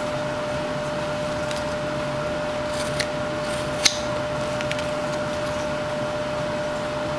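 Small knife whittling a wooden carving, giving a few faint scrapes and small sharp snicks as it cuts, the clearest about three and four seconds in, over a steady room hum with a constant tone.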